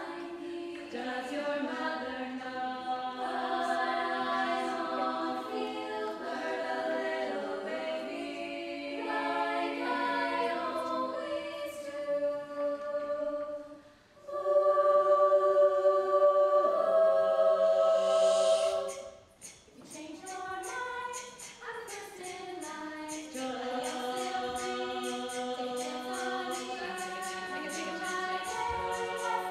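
Women's a cappella group singing in close harmony, several voices holding chords together. About halfway the singing drops out for a moment and comes back louder, then the voices slide in pitch and a quick ticking beat runs under the chords.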